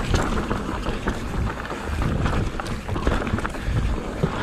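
Mountain bike rolling down a dirt singletrack: tyre noise on the dirt with frequent small knocks and rattles from the bike, over a low wind rumble on the microphone.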